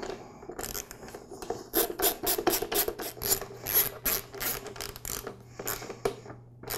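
Socket ratchet clicking quickly and evenly, about five or six clicks a second for roughly three seconds, as it runs a screw into the compressor's plastic pump cover. A few more clicks follow near the end.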